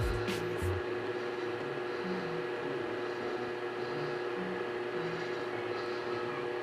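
Steady kitchen hum with a hiss underneath and two held tones, like an appliance or fan motor running, with a few light clicks in the first second.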